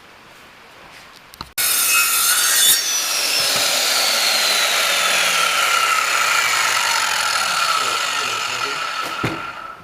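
Circular saw cutting through thick wood, starting abruptly about a second and a half in, running steadily with a high whine and stopping near the end.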